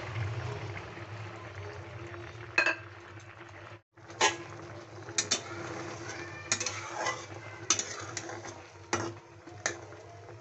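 A metal spatula stirring okra in mustard-paste curry in a metal kadai. It clinks and scrapes against the pan about ten times at irregular intervals, over the low bubbling of the simmering curry.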